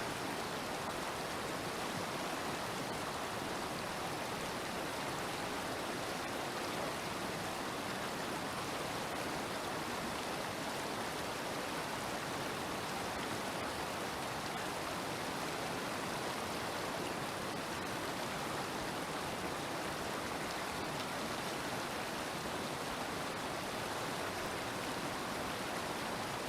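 Waterfall: water falling and rushing in a steady, unbroken roar of white noise.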